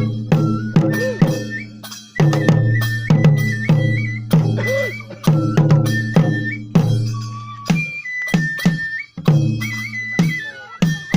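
Traditional Japanese festival music: a drum struck in a steady, repeated rhythm under a high, stepping flute melody.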